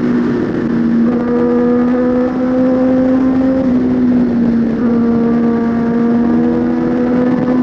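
Suzuki GSX-R1000 inline-four engine running hard under way. Its pitch holds mostly steady, dipping slightly twice and climbing again.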